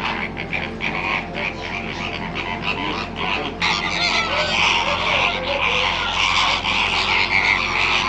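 A large flock of greater flamingos calling all together, a dense chorus of many short, overlapping croaking calls that gets louder about three and a half seconds in.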